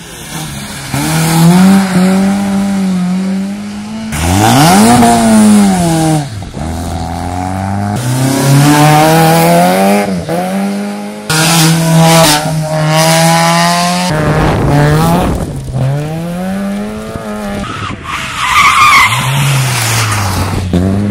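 Rally car engines revving hard, their pitch climbing and dropping with gear changes and passes, the sound cutting abruptly several times from one car to the next.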